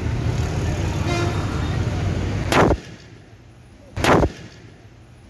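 Two loud bangs from a monkey gun, a pipe gun that fires calcium carbide gas to scare monkeys off, set off about a second and a half apart. Each bang is short and sharp with a brief ringing tail.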